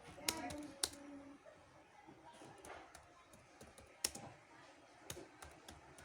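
Computer keyboard being typed on in an uneven run of key clicks, a few keystrokes standing out sharper and louder than the rest.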